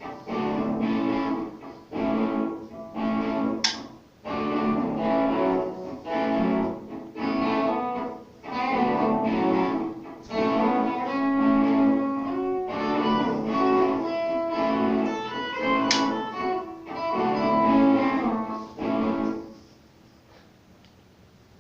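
Guitar practice: phrases of plucked notes with short pauses between them, stopping near the end. Two brief high squeaks cut through it, once early on and once about three quarters of the way in.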